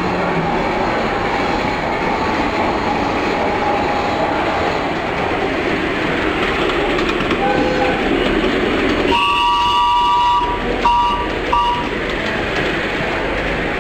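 Train sound effect played from a loudspeaker at a museum exhibit: the steady rumble of a running train. About nine seconds in, a train horn sounds one blast of about a second, then two short blasts.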